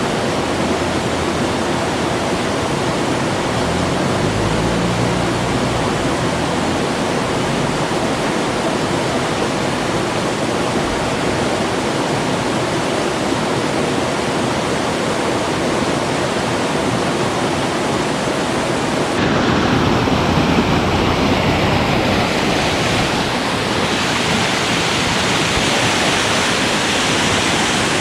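Small stream's waterfall cascade rushing steadily. The rush changes abruptly and gets a little louder about two-thirds of the way through.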